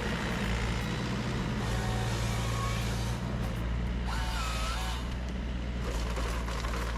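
A forestry harvester's diesel engine running steadily, with faint short whines rising and falling a couple of times, about two and four seconds in.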